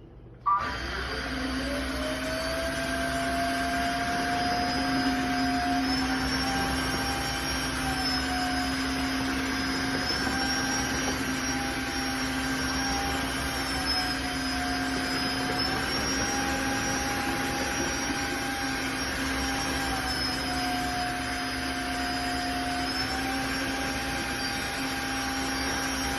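Tineco Floor ONE S3 wet-dry vacuum running its self-cleaning cycle: a motor starts abruptly about half a second in and spins up to a steady hum. Its whine then steps up and down in pitch every few seconds.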